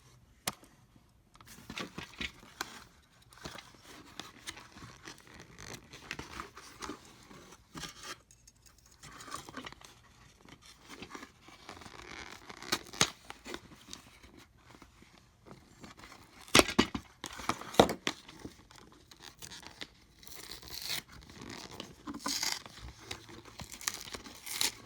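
Packaging being torn and broken open by hand, with irregular tearing, crinkling and scraping. Two loud sharp snaps come about two-thirds of the way through.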